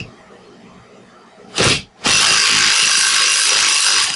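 Cordless power tool spinning the flywheel nut off a mower engine's crankshaft: a short blip, then about two seconds of steady running that cuts off suddenly. The nut is a little tight from the hammering on its threads.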